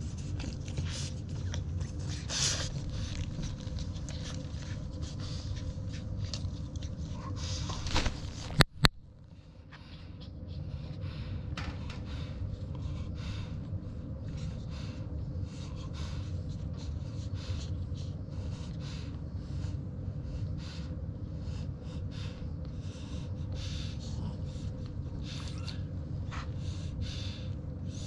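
Newborn French Bulldog puppies suckling at their mother's teats: many quick wet sucking and smacking clicks over a steady low rumble. A sharp double click about a third of the way in is the loudest sound.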